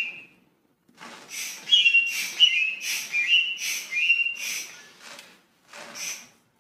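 Foot pump inflating an exercise ball through a hose. Each stroke gives a short hiss of air with a whistle at the valve, about two strokes a second, slowing and stopping near the end.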